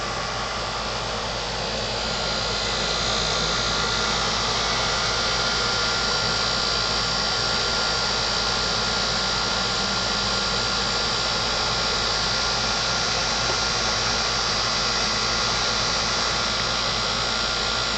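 A steady, even rushing noise with a strong high hiss and no breaks, getting slightly louder about two seconds in.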